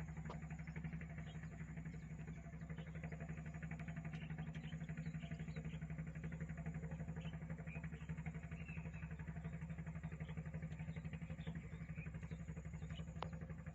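Small boat engine running at a steady speed, with an even, fast pulsing beat.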